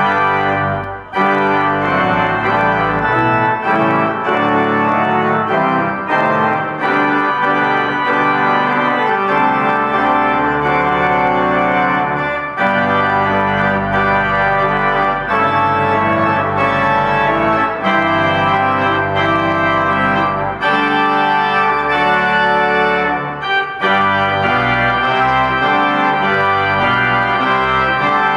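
Pipe organ played loudly, sustained full chords with many pitches sounding together over deep bass notes. The chords come in at the start, with short breaks about a second in and again a few seconds before the end.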